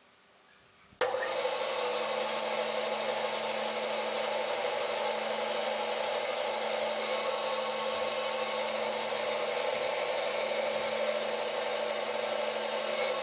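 Electric power tool running steadily on wood, cutting in abruptly about a second in: a constant motor tone under a rough, even noise of the wood being worked.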